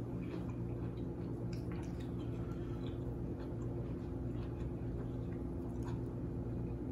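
Faint wet clicks and squishes of peeled shrimp being picked up by hand from a plate. Underneath them runs a steady low hum.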